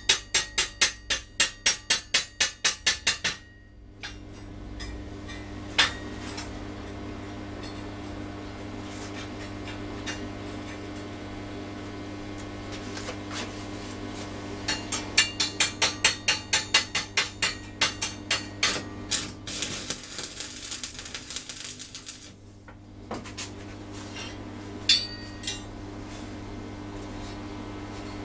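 Quick runs of light hammer taps on steel rod, about four a second, typical of chipping welding slag off fresh welds. The taps come in two bursts, with a hissing scrape late in the second one and a few lone taps near the end. A steady low electrical hum runs underneath.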